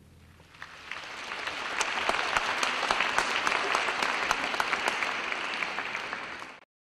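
Audience applauding. The clapping swells over the first couple of seconds, holds steady, and cuts off abruptly near the end.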